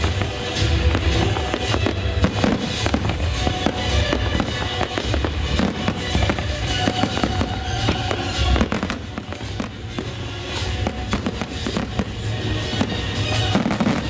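Fireworks shells bursting in a dense, continuous series of bangs over music playing.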